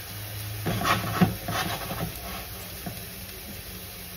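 Chickpea-flour pancake frying in olive oil in a pan, a soft steady sizzle, with a few light clicks and knocks about a second in and a low hum underneath.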